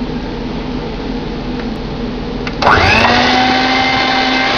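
Electric hand mixer running, its beaters whipping creamed butter and sugar batter as an egg is beaten in. About two and a half seconds in it gets louder, its whine rising quickly and settling at a higher steady pitch.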